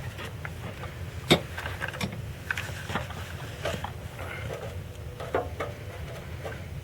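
Scattered light clicks and knocks of hand work on the metal dipstick tube adapter, with a steady low hum underneath. The sharpest knock comes a little over a second in.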